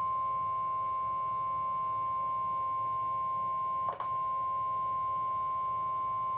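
NOAA Weather Radio 1050 Hz warning alarm tone: one steady, high single-pitched tone, sent as the weekly test of the alert signal. It breaks for an instant with a click about four seconds in, then carries on.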